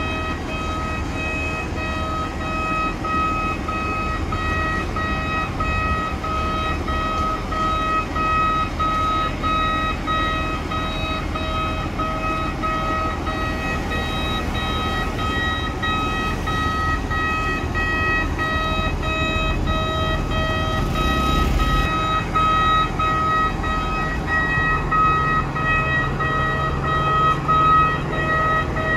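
Machinery warning beeper sounding steadily: one high beep repeated evenly about two to three times a second, over the low rumble of a running engine. A deeper engine hum rises near the end.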